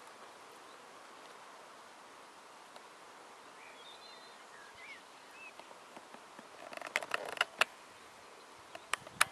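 Faint outdoor ambience with a few distant bird calls, then a quick run of sharp clicks and knocks about seven seconds in and two more just before the end.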